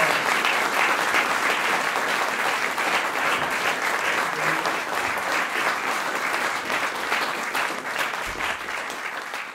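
Audience applauding: dense, steady clapping that slowly dies down toward the end.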